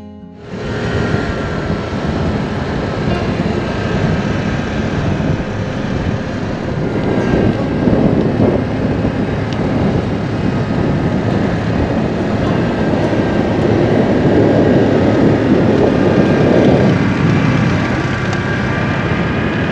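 A Vespa scooter's engine running while it is ridden, under steady wind rush on the microphone; the sound cuts in abruptly about half a second in.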